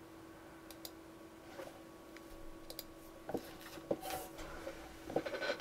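Faint clicks and small knocks from a computer mouse and keyboard being worked, over a steady low electrical hum; the clicks grow more frequent and louder in the second half.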